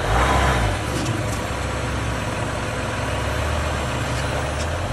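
Jeep Wrangler EcoDiesel's 3.0-litre V6 turbodiesel running at low speed as the Jeep crawls along, a steady low rumble that is louder for the first second.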